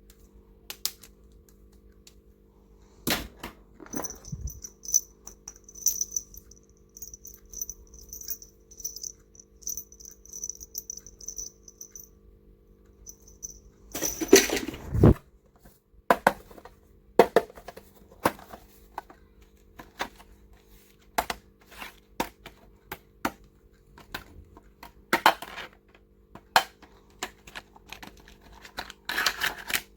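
Plastic stationery and toy items being handled, giving scattered sharp clicks, taps and light rattles, with a louder rustle about halfway through. A faint, high pulsing tone runs for several seconds in the first half.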